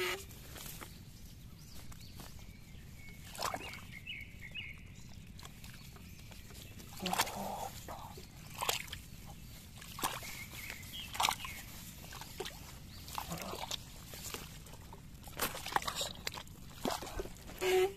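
Irregular sloshing and splashing of boots wading through shallow, muddy rice-paddy water, with a few louder splashes in the second half.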